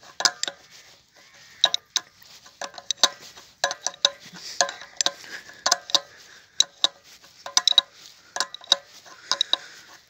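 A steel spanner clinks against the nuts and bolts of a pump's shaft coupling as the nuts are tightened: irregular sharp metal clicks, a few a second, each with a short ring.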